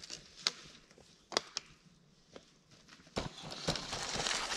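A few sharp clicks and knocks, then a road bike on narrow tyres rolls closer over a rocky trail, its tyres crunching and rattling on loose stones and getting louder near the end.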